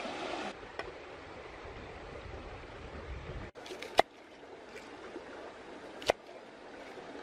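Large knife cutting through bok choy stalks onto a wooden cutting board: two sharp knocks about two seconds apart, over the steady rush of a shallow stream.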